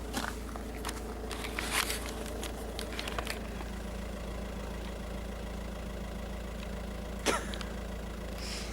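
Car engine idling steadily, a constant low hum heard from inside the car, with a few short clicks and taps, the sharpest about seven seconds in.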